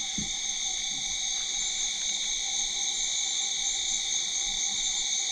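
Steady chorus of night insects in the forest: several high-pitched tones held unbroken at once.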